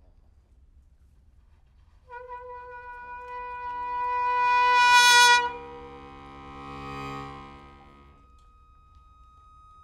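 Trumpet holds a single note from about two seconds in, swelling steadily to loud and cutting off sharply. Beneath it an accordion swells in with a low held chord that fades out near the end, leaving a faint high held tone.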